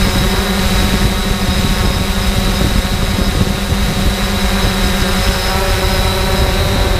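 3DR Solo quadcopter's electric motors and propellers whining steadily as it hovers, heard from the camera mounted on the drone, with a ragged low rumble of buffeting air underneath.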